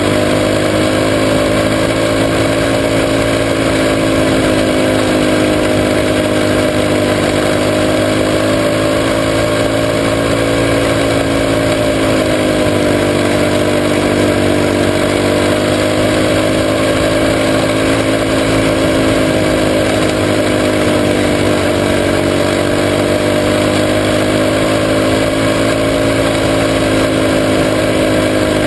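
Junior sprint car's engine running hard at racing speed, heard from a camera mounted on the car. Its pitch holds high and steady, dipping and climbing back twice, around the middle and about three-quarters of the way through, as the car circles the dirt oval.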